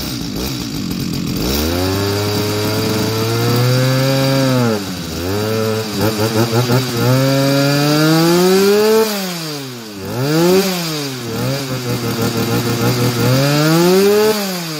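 Brand-new Stihl MS 210 chainsaw's 35 cc two-stroke engine running and being revved, its pitch climbing and dropping, with a run of short up-and-down revs from about nine seconds in. The engine is being run gently to warm it up after its first start.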